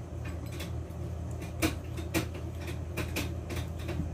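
Metal spoon stirring dry flour mixture in a glass mixing bowl, clinking against the glass in a string of irregular taps, the loudest about one and a half seconds in, over a steady low hum.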